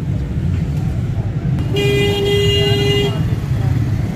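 Street traffic with motorcycle engines running close by, a steady low rumble. In the middle a vehicle horn sounds once, a held tone lasting about a second and a half.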